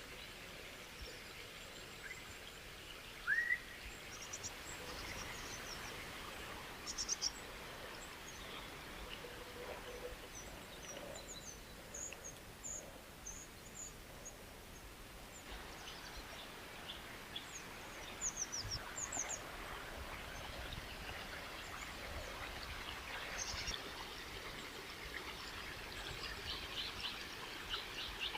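Flowing water making a steady soft rush, with birds chirping many times over it and one rising whistled call about three seconds in.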